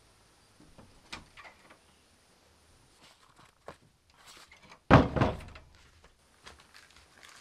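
A wooden front door shuts with a loud thud about five seconds in. Before it come a few light scuffs and taps of rubber clogs being stepped into on a concrete porch, and a few small taps follow.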